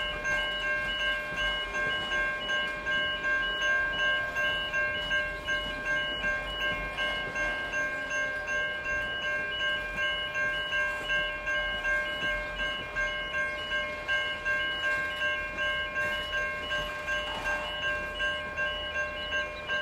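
Level crossing warning bell ringing in an even, repeating rhythm, about two rings a second, while a passenger train's carriages roll by faintly underneath.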